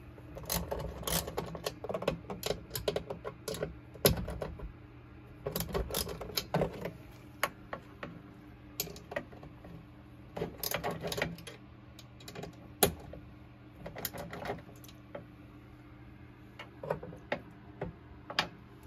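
Irregular bursts of small metallic clicks and taps from a socket on a long extension working screws loose inside a solar inverter's wiring compartment.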